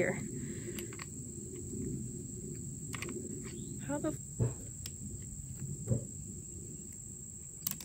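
Steady high-pitched drone of summer insects, with a few light clicks as a drill bit is handled and fitted into a cordless drill's chuck.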